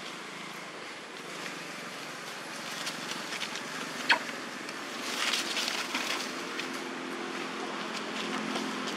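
Rustling in dry leaf litter on a forest floor, with a single sharp click about four seconds in. A steady low hum sets in from about six and a half seconds.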